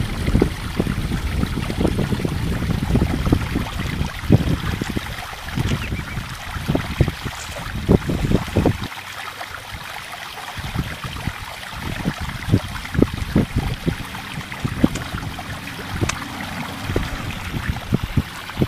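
Wind buffeting the microphone in irregular low gusts over a steady hiss, easing off for a moment about nine seconds in.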